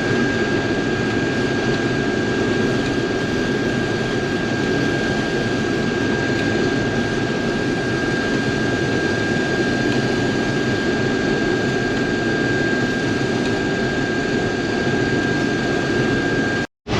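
Combine harvester running steadily under load while unloading grain, heard from inside the cab, with a thin, steady high whine over the engine noise. The sound cuts out abruptly for a moment near the end.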